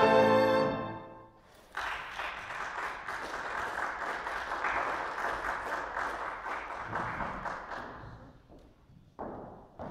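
Violin and grand piano ending on a final held chord that dies away within about a second, then audience applause for several seconds that tapers off. Near the end, a few footsteps on the wooden stage.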